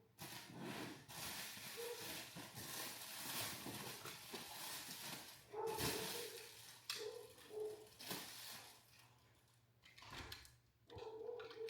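A dog whimpering in a few short, high whines, over rustling and handling noises with small knocks.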